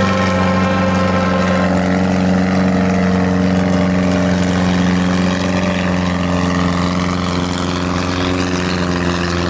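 Antique tractor's engine running at a steady pitch under load as it pulls a weight-transfer sled.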